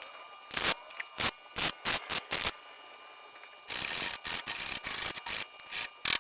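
Hand-worked abrasive strokes on sheet metal, smoothing a patch piece. There are about six quick strokes in the first two and a half seconds, then a denser run of rubbing strokes in the middle.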